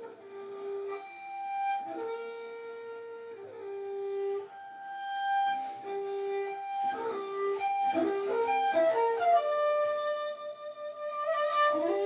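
Instrumental background music: a slow melody of long held notes, with a quicker run of short notes about seven to nine seconds in.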